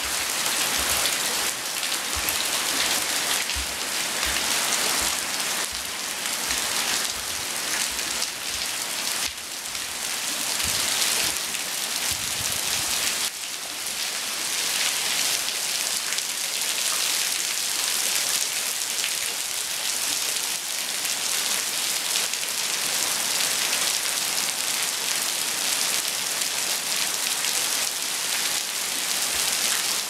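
Heavy typhoon rain pouring steadily onto a garden, gravel, paving stones and tiled roofs: a dense, even hiss.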